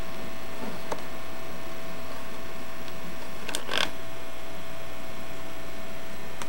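Steady hum and hiss from a home-video camcorder in a quiet room, with a steady tone throughout. There are a few faint clicks, and a brief rustle of handling noise about three and a half seconds in as the camera pans.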